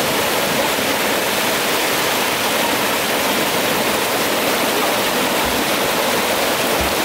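Stream water pouring steadily over a small rocky cascade close to the microphone: a loud, even rush of white water.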